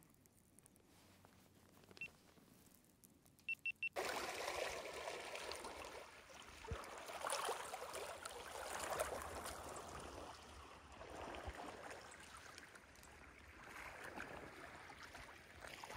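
Faint, irregular lapping and trickling of lake water against a rocky shore. It starts about four seconds in, after near silence broken by four quick high beeps.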